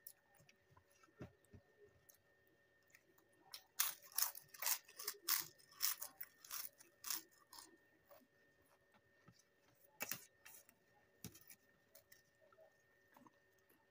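Crisp food being bitten and chewed close to the microphone: a quick run of about a dozen loud crunches from about four to seven and a half seconds in, then single crunches near ten and eleven seconds.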